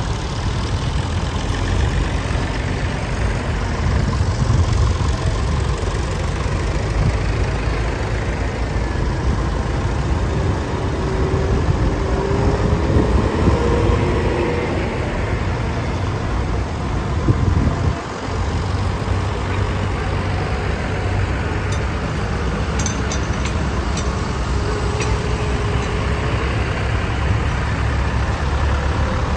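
Several tractor engines running as a line of vintage and modern tractors drives past one after another at close range, a steady low rumble with one engine note rising and falling about midway.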